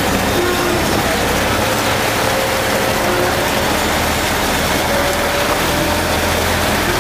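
River ferry's engine running steadily while the boat idles at the pier, a low hum under a constant rushing noise.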